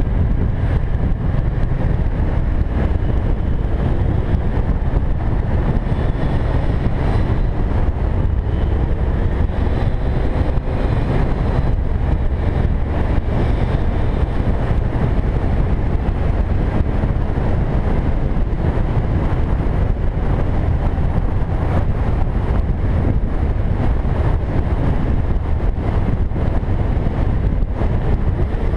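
Suzuki Boulevard cruiser motorcycle running steadily at road speed, with heavy wind rushing over the microphone.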